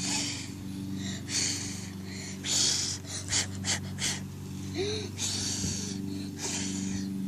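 Breaths close to the microphone: short hissy puffs about a second apart. Under them runs a steady low hum, and a few quick clicks of the phone being handled come about three seconds in.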